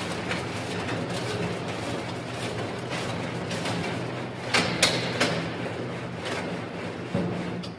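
Automatic sugarcane peeling machine running, its motor humming steadily while a sugarcane stalk is fed through and the rind is scraped off. A few sharp knocks come about four and a half to five seconds in.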